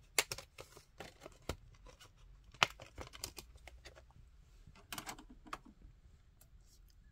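Scattered sharp plastic clicks and light rattling as a 4K Ultra HD disc is unclipped from the centre hub of its black plastic keep case and handled. The loudest click comes about two and a half seconds in. A few more clicks follow around five seconds in as the disc is set into a player's disc tray.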